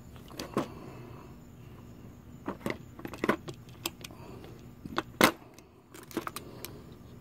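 Hard plastic clicks and knocks from a RYOBI One+ 18-volt cordless string trimmer/edger head and guard being handled and turned by hand. The clicks come irregularly, about a dozen of them, and the loudest is about five seconds in.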